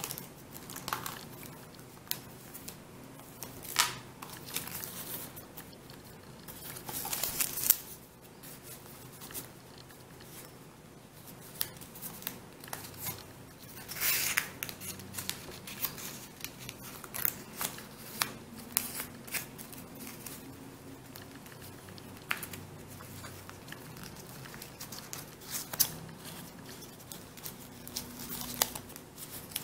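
Origami paper rustling and crinkling as modules are slid into each other's pockets and folded, with many small sharp crackles of creasing and a few longer rustles, the strongest at about 7 and 14 seconds in.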